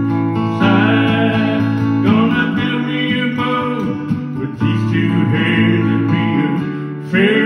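Steel-string acoustic guitar strummed in a steady country-folk accompaniment, with a bending melody line carried over it.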